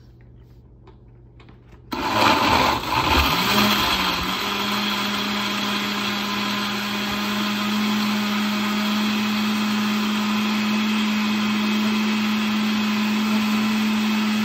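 Countertop blender switched on about two seconds in, crushing ice cubes for a smoothie: a sudden loud, rough start while the motor's pitch climbs, then a steady whir as it blends the ice, banana and peanut butter.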